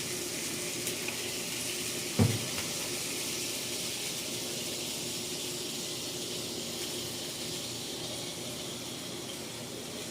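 Water hissing and sizzling on a hot steel griddle as it is cleaned, a steady hiss that slowly fades, with a single knock about two seconds in.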